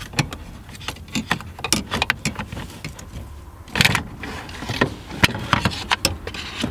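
Irregular clicks, knocks and clinks as the factory shifter assembly is worked loose and pulled out of the car's console, with a longer, louder clatter about four seconds in.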